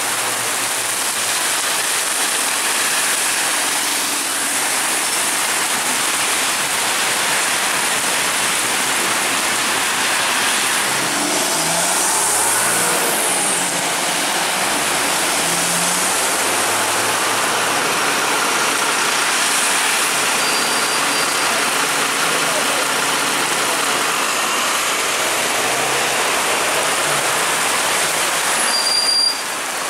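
Heavy rain hissing steadily on the road, with a bus engine and tyres on wet tarmac as the bus passes; the engine note rises about halfway through as the bus pulls away.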